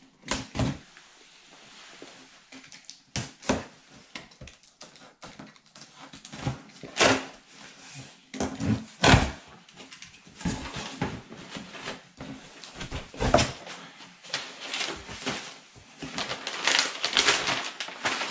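Large cardboard shipping box being opened by hand: flaps knocking and scraping, then brown kraft packing paper crackling and rustling as it is pulled out and crumpled near the end.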